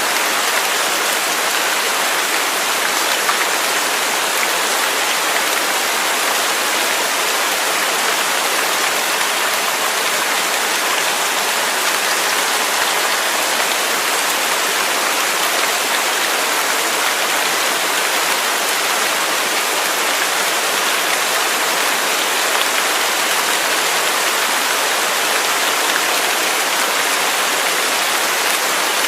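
Waterfall: a steady, unbroken hiss of falling water with little deep rumble, holding the same level throughout.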